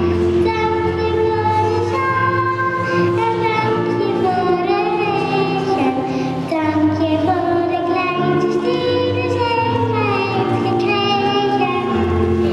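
A group of children singing a song, accompanied by an acoustic guitar.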